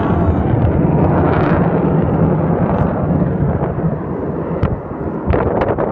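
Roar of a CF-18 Hornet's twin turbofan jet engines climbing away after takeoff: a loud, deep, continuous rumble that eases briefly about four and a half seconds in and then swells again.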